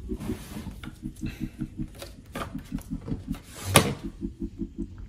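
Plastic Blu-ray case and its paper inserts being handled, with light clicks and rustles and one sharp plastic snap nearly four seconds in as the case is opened. A faint low pulsing, about five a second, runs underneath.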